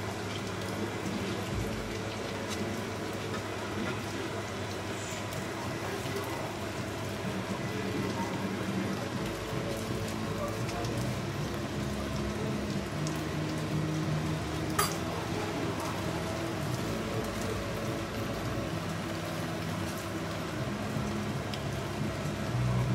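Steady hiss of rain, with a faint murmur of voices underneath and one sharp click about fifteen seconds in.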